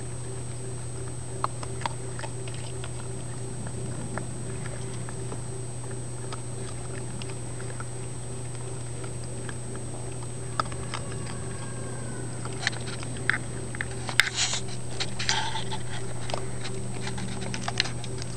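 Raccoons feeding at a plastic tub of water: scattered clicks and small splashes from paws and mouths in the water and food, busiest about three-quarters of the way through, over a steady hum.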